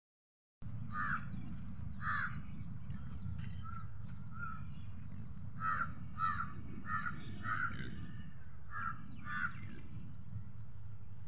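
Crows cawing: a single caw about a second in and another a second later, then a run of about eight caws from about six to nine and a half seconds, over a steady low rumble.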